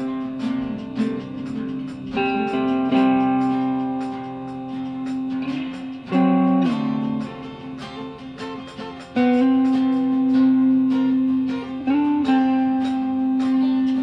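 Guitar being played: plucked notes held long, with pitch bends or slides between some of them, one gliding down about six seconds in and one gliding up about twelve seconds in.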